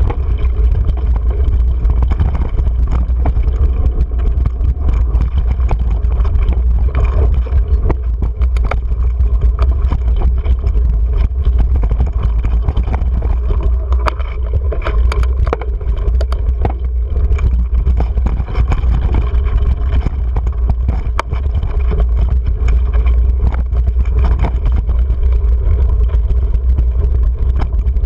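Mountain bike ridden fast over a rocky dirt trail, heard through a GoPro: a steady low rumble of wind and ride vibration on the microphone, with frequent small clicks and rattles as the tyres and bike hit stones and bumps.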